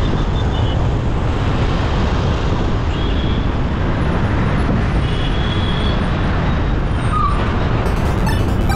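Steady road and traffic noise from a car driving on city streets: an even rumble of tyres and engine, with a few faint tones above it.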